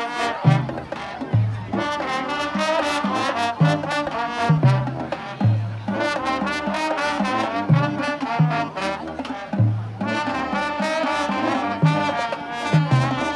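High school marching band playing a brass-led tune in the open air, trumpets and trombones over a repeating bass line with drum hits.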